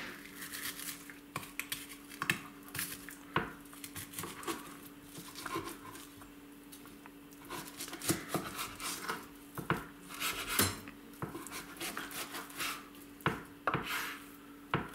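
Kitchen knife cutting a backstrap off a raw roe deer saddle, the blade scraping along the backbone and knocking against a bamboo cutting board in irregular clicks and scrapes.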